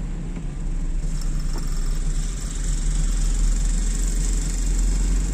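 Car engine and tyre noise heard from inside the moving car's cabin: a steady low rumble with a light hiss above it, swelling slightly partway through.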